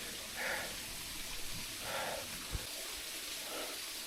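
A hiker breathing hard under load while climbing, a heavy breath about every second and a half, over a steady hiss. A small knock about two and a half seconds in.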